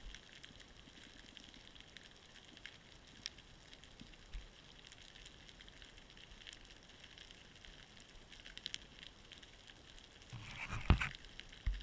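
Faint underwater crackle over a rocky seabed: a steady hiss with many scattered small clicks and snaps. Near the end a louder rush of water and a sharp knock come through, then a second knock.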